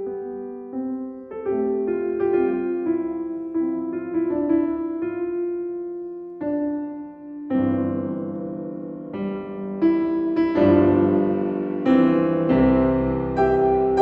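Grand piano playing a slow, lyrical passage of chords and melody from the Adagio of a classical-era sonata. It grows louder and fuller about halfway through.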